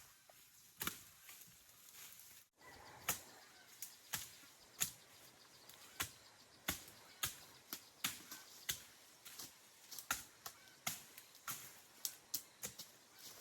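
Hand tool chopping repeatedly at vegetation, a sharp strike roughly every half second, with a brief break about two and a half seconds in.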